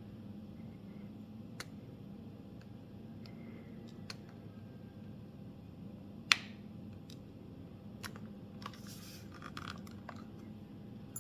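Small clicks and scrapes of a tri-point screwdriver backing the tri-point screws out of a Nintendo Switch's back panel, with one sharp, louder click a little past halfway and a short stretch of scratchy rustling near the end.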